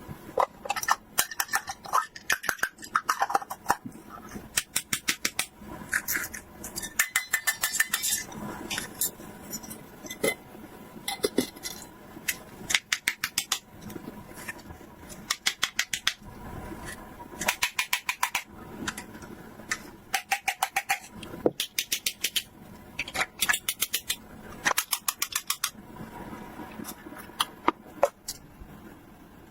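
Small plastic toy pieces and packaging being handled: quick runs of sharp clicks and light clatters in short bursts, again and again, like toy dishes and cutlery knocking together.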